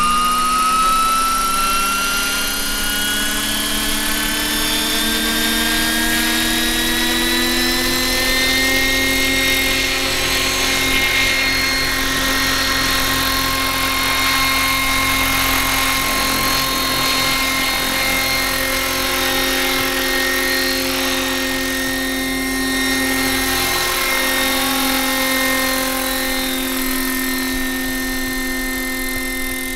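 Electric RC model helicopter, a 1:7 scale Bell 230 converted to 12S electric drive with a 1.8 m main rotor, running with a whine that rises in pitch over about the first eight seconds, then holds steady over the rotor noise as it flies.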